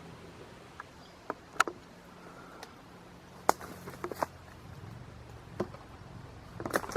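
Footsteps through dry forest brush: irregular sharp snaps and crackles of twigs and dead leaves underfoot, the loudest about a second and a half in and again about three and a half seconds in.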